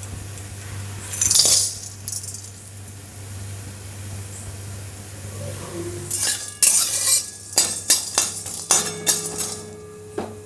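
Hard whole spices (cardamom pods, peppercorns, cloves, cinnamon sticks) dropped into a dry metal kadai, clinking and rattling in a run of sharp clicks through the second half. Under it runs a steady low hum, and a short loud hiss comes about a second and a half in.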